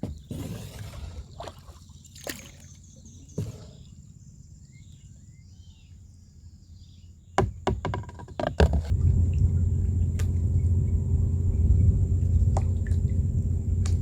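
Light water sloshing and a few knocks, then a cluster of knocks. About nine seconds in, a small boat's motor is running with a steady low hum.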